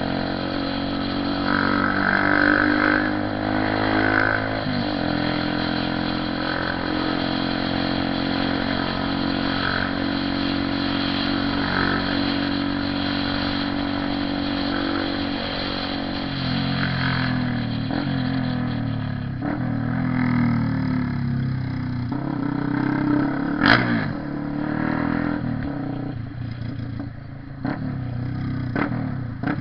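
Honda CB 300R single-cylinder motorcycle engine running steadily while riding, its pitch shifting a few times as speed changes. A single sharp knock comes about three quarters of the way through.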